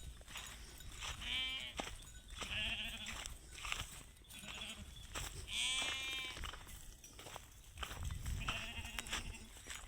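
Goats bleating, about four wavering calls, the loudest and longest about six seconds in.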